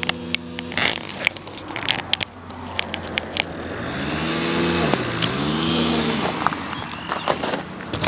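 Quadcopter's small brushless electric motors whirring steadily, cutting out about a second in. They rev up and down twice near the middle. Sharp clicks and scrapes of handling are scattered throughout.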